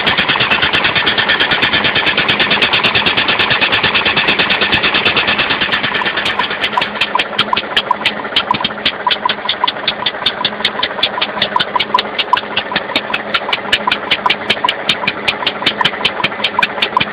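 Hero Honda 98cc single-cylinder engine converted to run on compressed air, with a solenoid valve feeding the air, running with a rapid train of sharp air puffs. The puffs come fast at first, then slow about six seconds in to roughly five a second.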